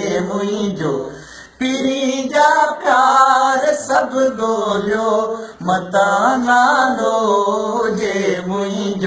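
A man singing a Sindhi song unaccompanied, in a chant-like style with long held, wavering phrases and a brief pause about a second and a half in.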